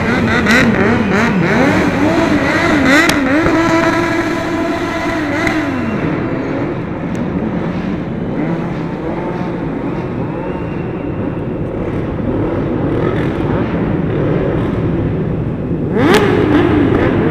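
Sport motorcycle engine revved up and down in quick blips during stunt riding in a large hall, easing to a lower, steadier running in the middle, then a sudden louder rev near the end.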